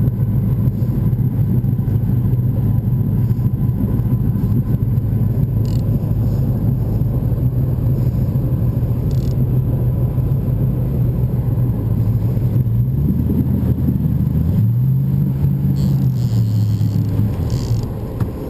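Boat motor running steadily under the fight, its revs shifting down and then up and back about two-thirds of the way through.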